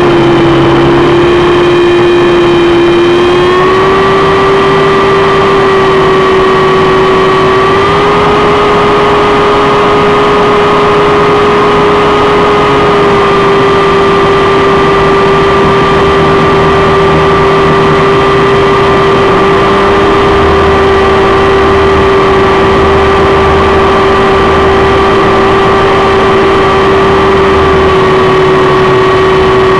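Helicopter in flight: a loud, steady engine-and-rotor whine that steps up slightly in pitch twice in the first eight seconds.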